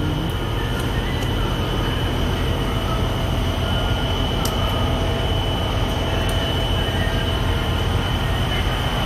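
Steady rushing and low rumble of a truck-stop diesel pump fuelling a semi truck's tank, with a constant high-pitched whine.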